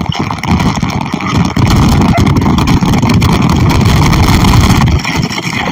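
Loud rushing, splashing water from a water-park spray feature, a heavy low rumble that eases about five seconds in.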